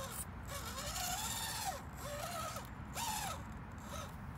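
Furitek Micro Komodo brushless motor and gear drivetrain of an Axial SCX24 RC rock crawler whining in short throttle pulses while it crawls over rocks. The pitch rises and falls about four times.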